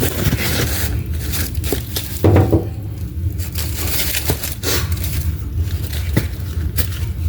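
Scattered knocks and scrapes over a steady low rumble, with one louder clunk a little over two seconds in.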